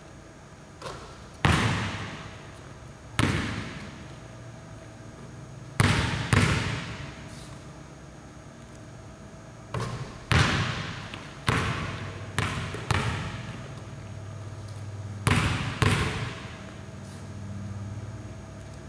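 Basketball bouncing on a hardwood gym floor, about a dozen sharp hits, some in quick pairs, each ringing on in the echo of the large hall.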